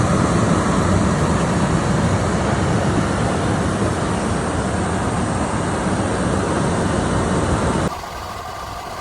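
Steady loud rush of a car driving through a snowstorm, wind and road noise together, dropping suddenly to a quieter steady hum about eight seconds in.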